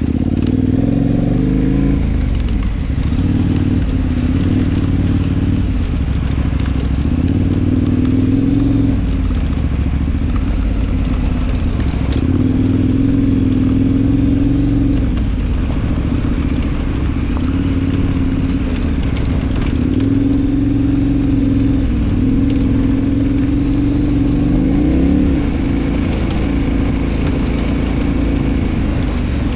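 KTM adventure motorcycle's engine under way, its pitch holding for a few seconds at a time and then stepping or sweeping up and down with throttle and gear changes, over steady wind and road noise.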